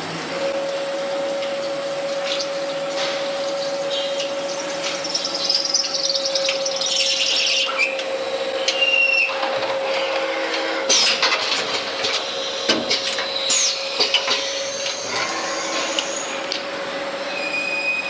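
CNC lathe running a drilling cycle on metal: a steady machine whine sets in just after the start and holds. Over it come irregular clicks and clinks, and a few short high squeals.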